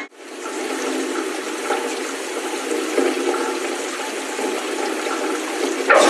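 Steady rushing of storm water churning through a street storm drain.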